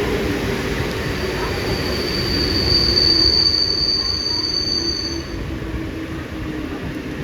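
Mumbai local electric train running through the station, a steady rumble with a high, steady wheel squeal from about a second in until about five seconds in. Under it a low hum slowly falls in pitch.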